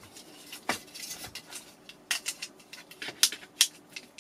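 Jump starter alligator clamps and their cables clicking and clattering as they are handled and lifted out of a hard-shell case. There are irregular sharp clicks, a few louder ones in the second half.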